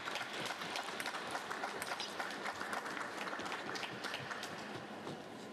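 Applause from the arena crowd and bench after a point, a dense patter of clapping that fades away near the end.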